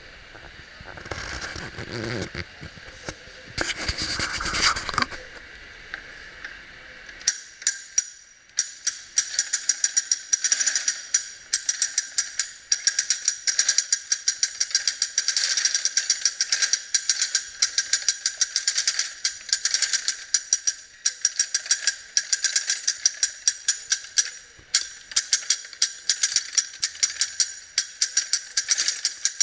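Hand-cranked mechanical braiding machine running: its moving parts click and rattle in a fast, even rhythm, with sharper clacks about twice a second. For the first several seconds there are only softer, irregular knocks before the steady clicking starts.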